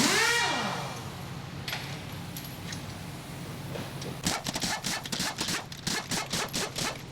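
Pneumatic impact wrench on truck wheel lug nuts. It spins down with a falling whine at the start, then hammers in a rapid series of about a dozen sharp rattling strikes from about four seconds in, over a steady low hum.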